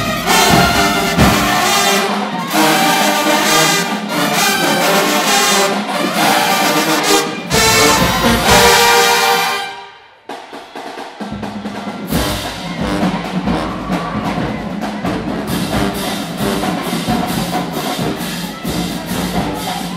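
A college marching band plays a loud tune in the stands, with sousaphones, trumpets, trombones and clarinets. The tune ends about halfway through. After a short gap, the drum section starts a steady beat.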